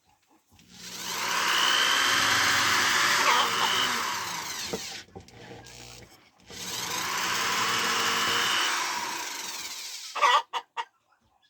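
A small handheld electric power tool run twice, each time speeding up, running steadily for a few seconds and then winding down. A few short sharp sounds come near the end.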